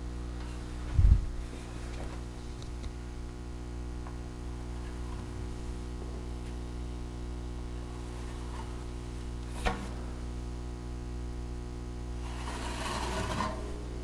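A wide drywall knockdown knife dragged over wet sprayed texture on a wall, a brief scraping rub near the end, over a steady electrical hum. A dull low thump comes about a second in and a sharp click near ten seconds.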